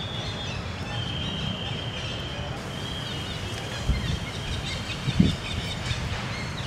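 Outdoor ambience: a steady low rumble with a thin, high, steady tone held for several seconds, and two short low thumps about four and five seconds in.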